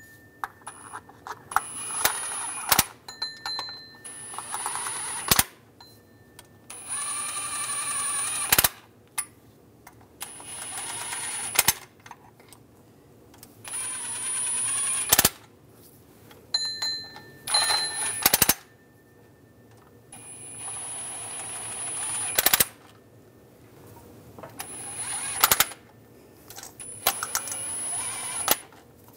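Cordless impact driver running in about ten short bursts of a second or two each, with a high motor whine and rapid hammering, as it runs down and snugs the water pump bolts on a 3.6-litre V6. Sharp metallic clicks of the socket and tool sound between the bursts.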